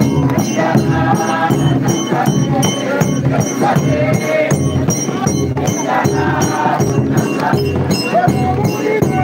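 A group of people singing together, accompanied by hand-held frame drums and tambourine-like jingles beating a steady, even rhythm.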